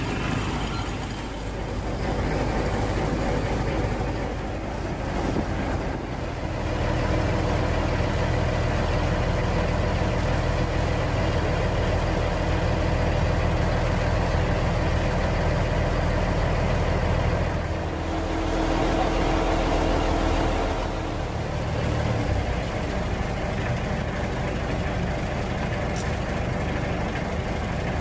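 A large vehicle engine running steadily with a low hum; a deeper, stronger drone comes in about six seconds in and drops away a little after twenty seconds.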